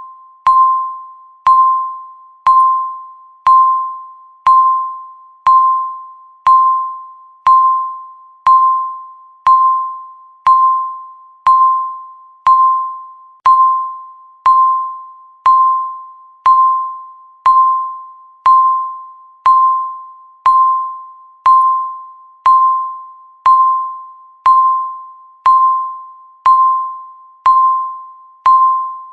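Countdown timer's electronic beep sounding once a second, a single high tone that starts sharply and fades away before the next one, marking each second still left.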